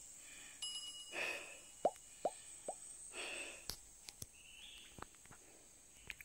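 Three quick plops, each falling sharply in pitch, about half a second apart, like drops or bubbles in water. A brief ringing chime sounds about half a second in, and faint clicks and hiss run under it all.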